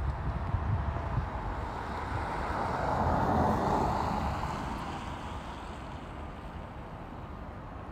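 A road vehicle passing by, its tyre and engine noise swelling to the loudest point about three and a half seconds in and then fading away, with wind rumbling on the microphone.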